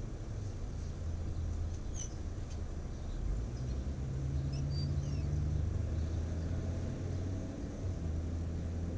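A steady low rumble, a little stronger in the middle, with a few brief high chirps about two seconds in and again around five seconds.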